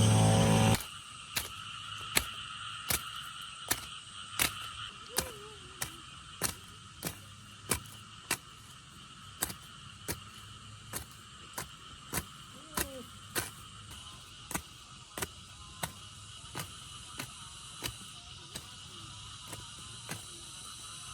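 Sickle cutting rice stalks, a sharp snap about every two-thirds of a second, over a steady drone of insects. Background music cuts off just under a second in.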